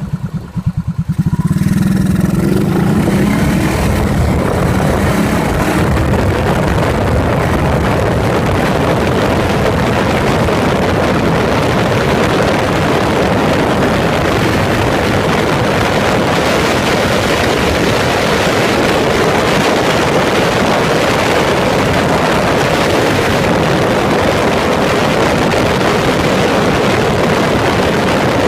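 Yamaha SRX400's single-cylinder four-stroke engine, heard up close from the fuel tank. It pulls away from low revs, its slow separate beats speeding up into a rising note over the first few seconds, then runs steadily at riding speed.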